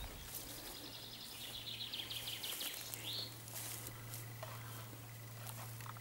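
A songbird singing: a fast trill of high notes for about three seconds, ending in a short rising note. Under it is a faint steady low hum with some light rustling of grass.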